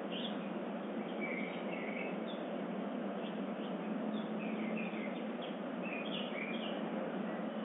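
Birds of the dawn chorus chirping: short, scattered high calls over a steady hiss.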